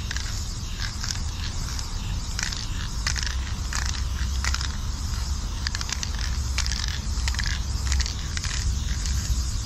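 Irregular crunching and crackling, like footsteps through dry grass and gravel, over a steady low rumble.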